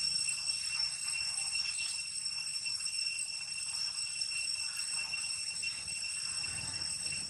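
Steady high-pitched insect drone: several even tones held without a break or a change.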